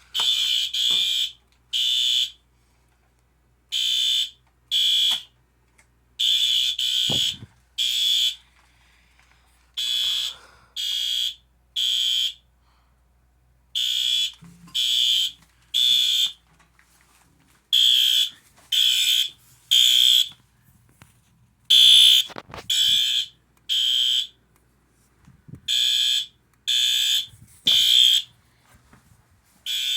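Fire alarm horn sounding the temporal-3 (code 3) evacuation pattern at its low-volume setting. It gives three short, high-pitched blasts, then a longer pause, and repeats.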